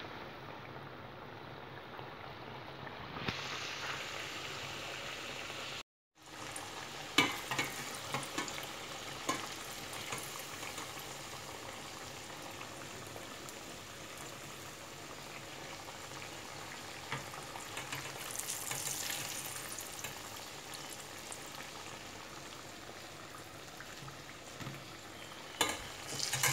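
Flour-and-egg-coated potato wedges deep-frying in hot canola oil in a stainless steel pot: a steady sizzling and bubbling, with a few clinks of a metal slotted spoon against the pot as the wedges are turned.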